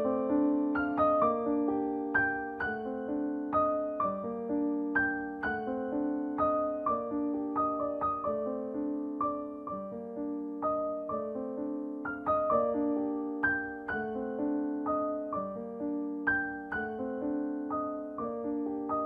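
Background piano music: gentle, slow notes struck one after another, each ringing out and fading.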